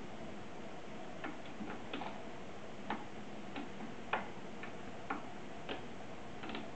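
A cat's paw and claws batting a dangling pom-pom toy and hitting the sisal-wrapped post of a cat tree: about a dozen light, irregular taps and clicks, starting about a second in.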